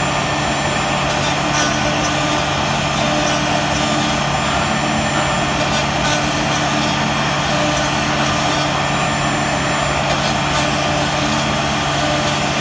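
CNC router spindle running steadily as it routes louvre grooves into a wooden cabinet door, a continuous machine hum with the cutting noise of the bit in wood.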